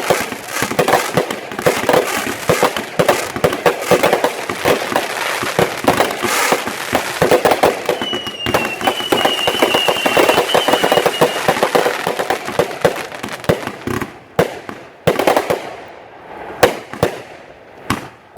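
Fireworks display: a dense run of aerial shell bursts and crackling, with a high whistle lasting a few seconds about halfway through. Near the end the bursts thin out to separate bangs.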